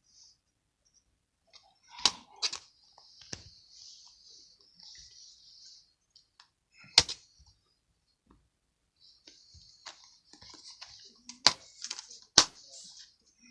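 Plastic DVD packaging being handled: sharp clicks and snaps, six loud ones spread through, with soft rustling of plastic between them.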